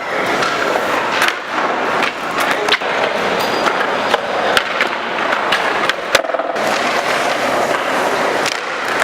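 Skateboard wheels rolling over pavement with a steady rough grind, broken by many sharp clacks and knocks of the board's tail and deck from pops and landings.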